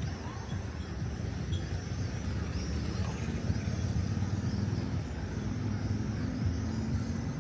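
Low, steady rumble of road traffic, with a faint drone in the middle and faint high chirps repeating about every half second.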